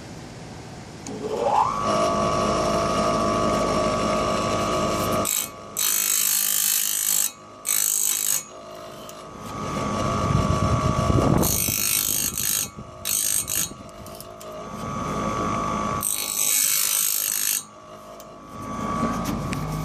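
Home-made bandsaw blade sharpener: its grinding-wheel motor starts about a second in, its whine rising to a steady pitch. The wheel then grinds the front of the blade's teeth in repeated short bursts of harsh, high-pitched grinding.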